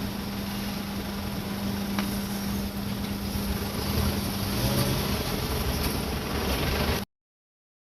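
Road traffic at a railway level crossing: a broad rumble of engines and tyres with a steady low hum that stops about five seconds in. The sound cuts off suddenly about seven seconds in.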